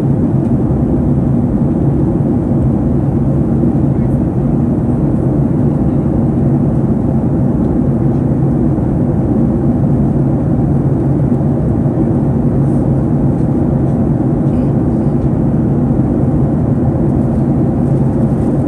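Steady cabin drone inside a Boeing 737 MAX 9 in flight, from its CFM LEAP-1B turbofans and the airflow over the fuselage, heard from a window seat near the wing. It is an even, low rumble with a faint hum and no change in level.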